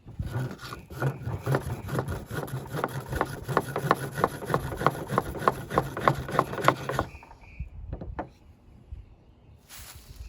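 Jute-and-wood-ash fire roll being rubbed hard back and forth under a wooden board: rhythmic scraping strokes, about three to four a second, quickening, that stop about seven seconds in. The friction is heating the ash-laced jute to make an ember.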